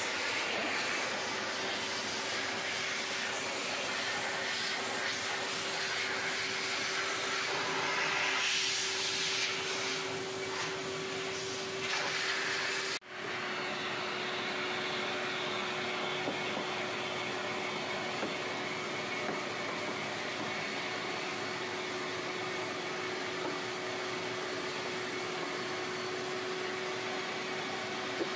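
Hyla water-separator vacuum cleaner running steadily as its nozzle is passed over piano keys, a steady hum under the rush of air. About halfway the sound breaks off for an instant and comes back duller.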